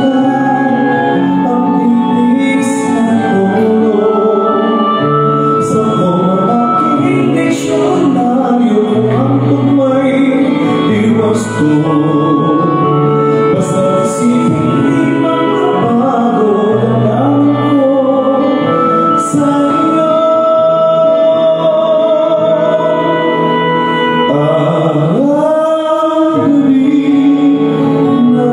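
A man singing into a microphone, amplified through loudspeakers, over instrumental backing music with a bass line and cymbal hits every few seconds. He holds long notes with vibrato.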